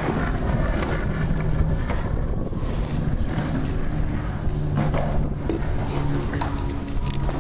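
Skateboard wheels rolling on concrete, with wind rumbling on the camera microphone and a couple of short knocks.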